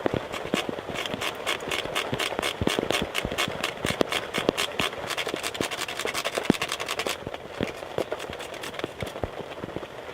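A stick of fatwood being scraped quickly back and forth on a small steel cheese-grater card, a fast run of rasping strokes about six a second, shaving the resinous wood into fine tinder. The scraping stops about seven seconds in, leaving only a few light scrapes and knocks.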